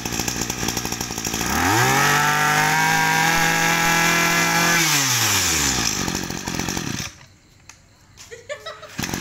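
Robin 26cc two-stroke brush cutter engine idling, then revved up hard about a second and a half in and held at full throttle for about three seconds. It drops back to idle and cuts out about seven seconds in.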